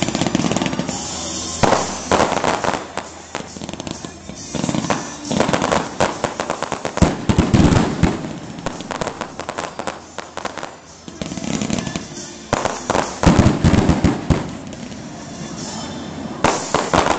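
Fireworks display: volleys of launches, bangs and crackling in clusters, each lasting one to a few seconds, with the heaviest rounds of bangs in the middle and again near the end.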